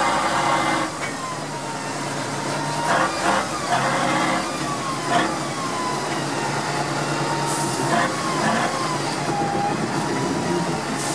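Tatra 813 truck's air-cooled V12 diesel running, with a faint wavering whine and a few knocks and rattles about three, five and eight seconds in.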